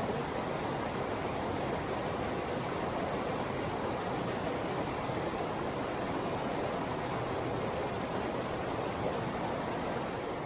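Small river flowing steadily, an even rushing of water with no breaks.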